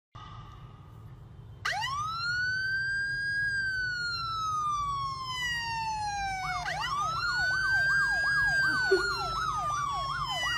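Emergency-vehicle siren played from a smartphone. It starts about two seconds in with a wail that rises and then slowly falls. About halfway through it rises again, with a fast up-and-down yelp of roughly three cycles a second layered over the wail.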